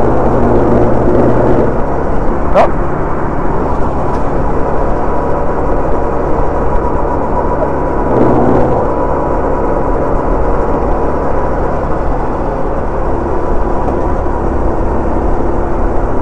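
Sodi two-seater rental kart's engine running hard at speed, heard close from on board, its note shifting near the start and again about eight seconds in. A short sharp knock about two and a half seconds in.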